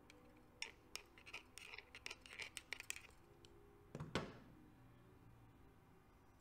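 Faint handling noise from a motorcycle engine's primary chain tensioner assembly: a string of light metal clicks and scrapes as the oiled spring, plunger and tensioner arm are worked by hand, then one louder short sound about four seconds in.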